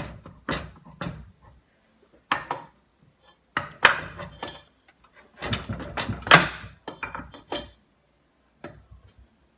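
Hand tools and metal engine parts clinking and knocking during the teardown of a 17.5 hp Briggs & Stratton engine. Irregular sharp clinks come with short pauses between them, loudest about four and six seconds in.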